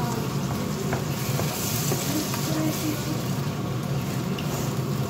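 Food sizzling in a nonstick frying pan as it is stirred with a wooden spoon, with a few faint scrapes and taps of the spoon, over a steady low hum.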